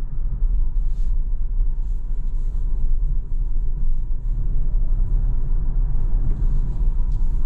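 Steady low rumble of tyre and road noise heard inside the cabin of a Tesla Model Y Performance, an electric car, driving at country-road speed, with no engine note.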